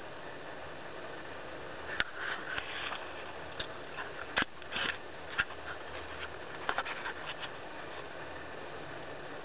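Steady hiss of room noise, with a scatter of small sharp clicks and brief rustles between about two and seven and a half seconds in.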